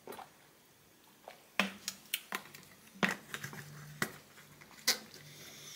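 A person gulping kefir from a bottle: a handful of short, sharp swallowing and mouth clicks, irregularly spaced.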